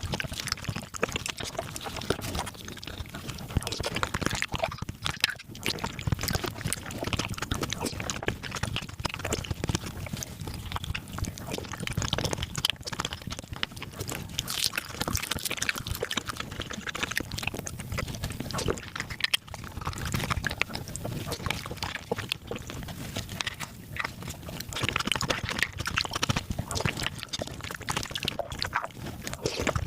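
Mukbang eating sounds sped up about five times: a dense, unbroken stream of wet chewing, sucking and slurping, with the fast squelchy clicks of spicy beef marrow being eaten.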